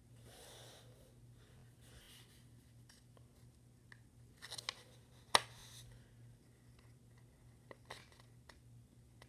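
Faint scratching and rustling of colored pencil and paper on a table, with a few light taps and one sharp click about five seconds in.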